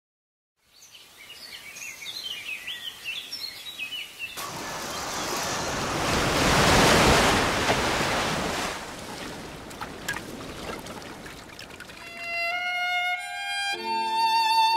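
Birds chirping, then a sea wave rushes in and breaks, swelling and fading away. About twelve seconds in, music begins with a rising run of held notes, a violin coming in.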